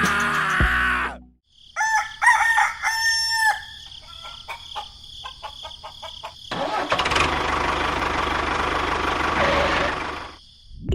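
A rooster crowing once, about two seconds in, a pitched call with held notes that drop at their ends. About four seconds later comes a rough, noisy engine-like run lasting about four seconds that cuts off abruptly.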